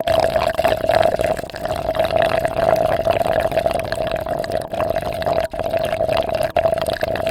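A drink being slurped long and steadily through a straw, a gurgling liquid suck with a steady tone running through it and a couple of brief breaks.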